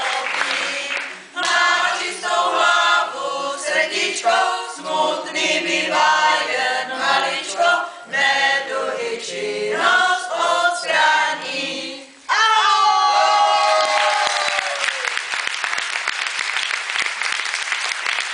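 Applause dies away, then a small mixed group of voices sings unaccompanied for about ten seconds, ending on a long note that slides downward. Applause starts again as the song ends.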